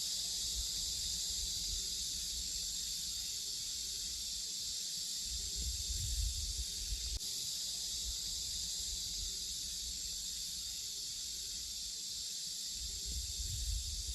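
A chorus of cicadas droning steadily in a dense, high-pitched buzz. Low rumbles come in briefly about six seconds in and again near the end.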